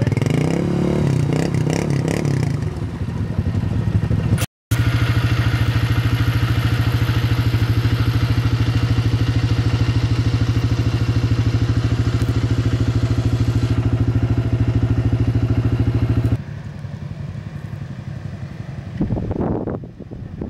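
ATV engines running. For the first few seconds an engine revs unevenly while an ATV works through deep mud and water. After a break, an engine idles steadily close by with an even pulse. Near the end, after a cut, a quieter engine revs up once.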